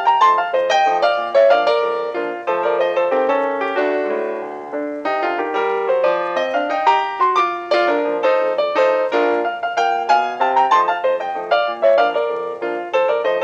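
Piano music with quick, busy runs of notes, the kind of piano score laid under a silent comedy film.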